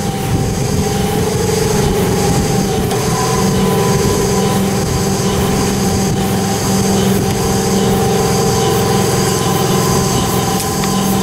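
Ferry boat's motor running steadily under way: a constant drone with steady whining tones over it.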